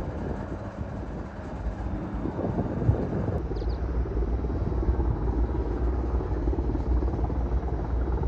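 Firefighting helicopter's rotor and engine as a steady low rumble, growing louder about two seconds in.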